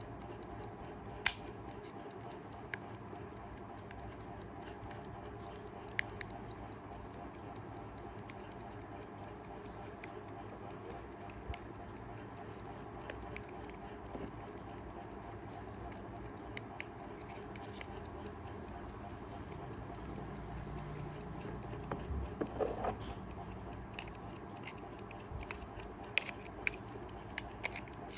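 Mechanical movement of a Kaiser 4 Rubis travel alarm clock ticking steadily; the balance is running, so the clock is going again. A few louder sharp clicks cut in, the loudest about a second in, with some handling noise and clicks in the last few seconds.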